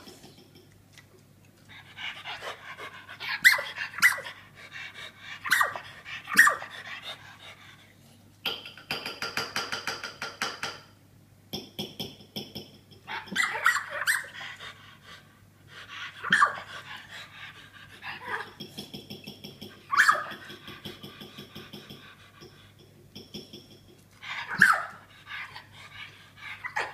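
Australian Terrier squeaking instead of barking: bouts of high squeaks a few seconds apart, some in fast runs. The squeak comes from a birth defect that leaves her unable to bark; the harder she tries, the higher it goes.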